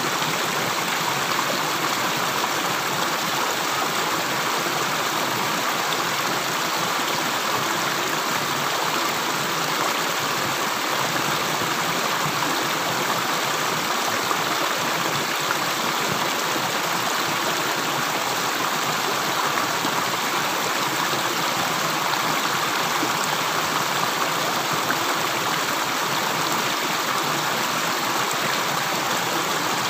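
Water flowing steadily, an even rushing like a small stream, with no separate drips standing out.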